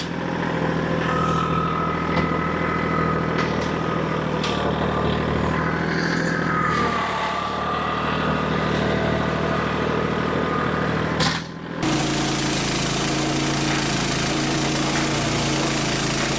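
A petrol engine running steadily, with a few sharp clicks and knocks over it. About eleven seconds in the sound dips briefly and changes abruptly to a different-pitched engine with a strong hiss added.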